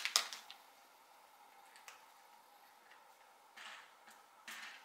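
Small plastic parts bags crinkling as they are handled, in short bursts at the start and twice near the end, with a few light ticks of small parts in between.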